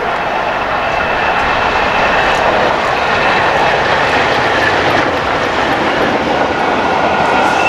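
Peppercorn A1 Pacific steam locomotive 60163 Tornado passing at speed with its train of coaches: a steady rushing roar of exhaust and running gear that grows louder as it nears and goes by.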